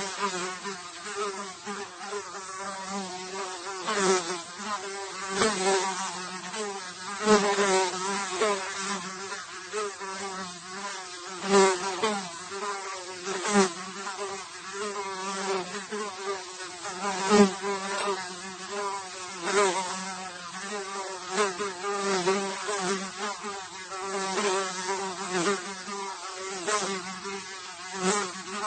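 A single housefly buzzing continuously, its wingbeat hum wavering in pitch and swelling louder every second or two as it moves about.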